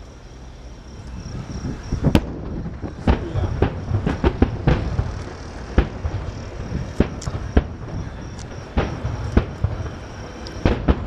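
Aerial fireworks display bursting: after a quieter rumbling start, sharp bangs begin about two seconds in and come every half second to second at irregular intervals, over a continuous low rumble.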